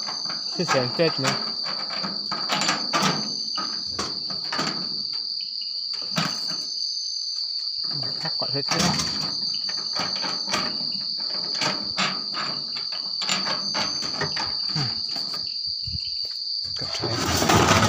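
Steady high-pitched chorus of crickets, with frequent short rustles and knocks from the phone being handled and moved, and a louder rush of noise near the end.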